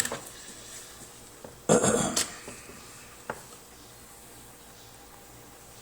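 Small metal tools clinking and clattering on a jeweller's bench: a click at the start, a short, louder clatter about two seconds in, and one more click a second later.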